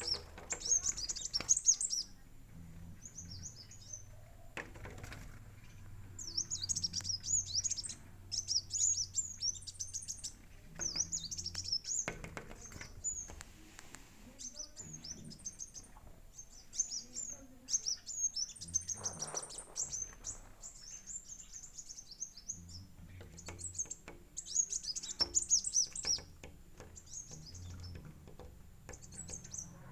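Small birds chirping in quick clusters of short, high twitters, repeated again and again with brief pauses.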